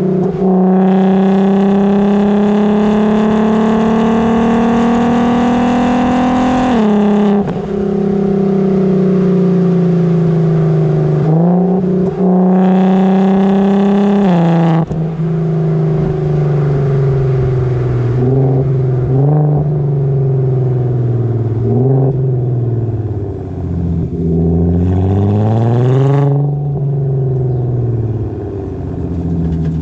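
Golf IV R32's 3.2-litre VR6 through an F-Town Aggressor aftermarket exhaust, heard at the tailpipe while driving. The engine note climbs through the revs in two long pulls, each ending in a sudden drop in pitch at a DSG gear change. It then goes on with shorter rises and falls at lower revs.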